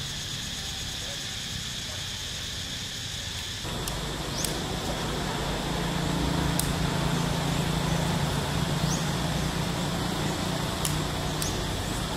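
Outdoor ambience among trees: a steady high-pitched insect drone over a low hum. After an edit about four seconds in, a louder low rumble joins it, with a few short high chirps scattered through.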